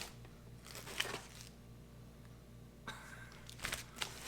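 Paper and plastic packaging rustling and crinkling as contents are handled and pulled from a box, in two spells: about a second in, and again from about three seconds on.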